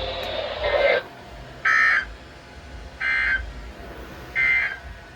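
Three short buzzing data bursts of the EAS/SAME end-of-message code (NNNN), about a second and a half apart, sent by NOAA Weather Radio to mark the end of the alert.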